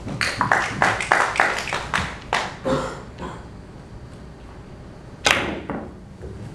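Carom billiards play: a quick run of sharp clicks and knocks over the first two and a half seconds, then a single sharp cue strike on the ball about five seconds in, with a short click of ball on ball just after.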